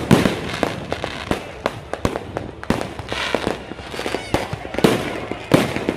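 Fireworks going off in many sharp, irregular bangs and crackles that overlap one another, with a loud bang right at the start and another near the end.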